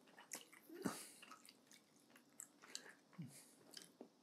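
Quiet, close-miked chewing of rotisserie chicken: soft wet mouth sounds broken by scattered short clicks, the loudest about a second in.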